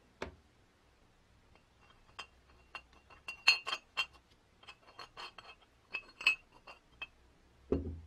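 Metal clinking as the metal feed screw is fitted into the cast-iron body of an antique Universal food chopper: a string of short clicks, some ringing, bunched in the middle. A duller knock near the end.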